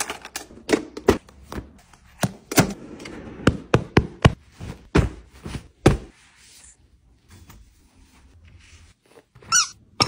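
Markers and crayons clattering into a metal tin box: a quick, uneven run of sharp clicks and knocks. This is followed by soft fabric rustling, and a short squeak near the end.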